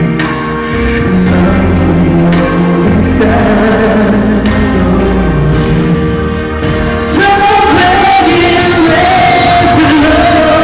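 Male solo singer singing a ballad live into a microphone over band accompaniment. The voice gets louder and climbs to higher, held notes about seven seconds in.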